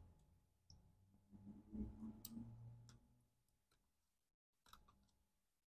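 Near silence with a few faint, scattered clicks and light taps, typical of small tools and laptop parts being handled during disassembly.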